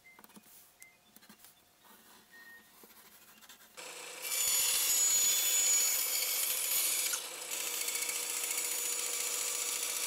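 After a quiet start with a few faint ticks, a bandsaw comes in about four seconds in, running with a steady hum and a loud hiss as its blade cuts through a thin quarter-inch board. The cut eases briefly around seven seconds, then carries on.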